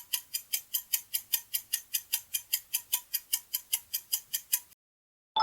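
Ticking countdown-timer sound effect, a quick even clock tick about five times a second, counting down the time to answer a quiz question; it stops suddenly shortly before the end.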